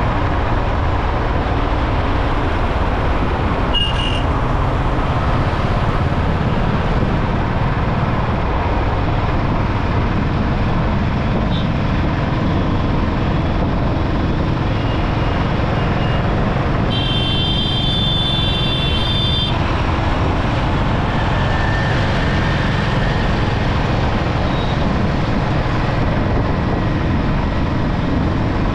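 Steady wind and road noise of a motorbike riding through city traffic. A vehicle horn honks for about two seconds a little past the middle, and there is a brief high beep about four seconds in.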